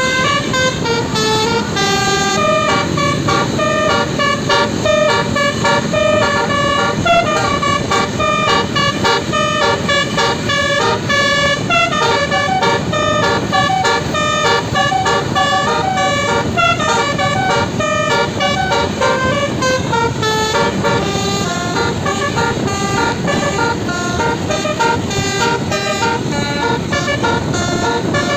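A bus's 12-note Basuri telolet horn, a multi-trumpet air horn, playing a continuous melody of quickly changing notes over steady background noise.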